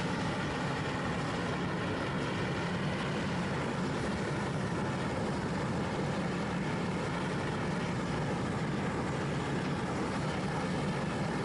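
Homemade metal-melting furnace fired by a forced-air burner, running steadily: an even rushing noise with a low hum that does not change.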